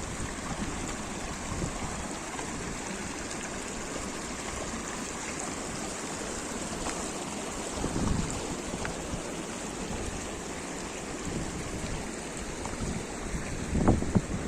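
Mountain stream rushing steadily, an even hiss of running water, with brief low rumbles about eight seconds in and again near the end.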